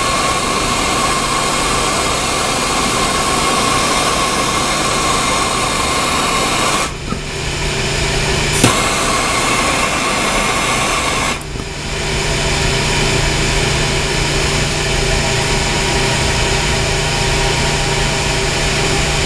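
Handheld plumbing torch burning with a steady hiss as it heats a copper sweat joint being soldered. The hiss dips briefly about seven and about eleven seconds in, with a single sharp click between.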